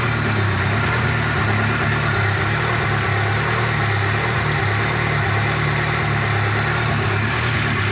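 VAZ two-litre four-cylinder petrol engine idling steadily while warming up, with a light ticking that the owner puts down to a hydraulic lifter that starts to knock when hot.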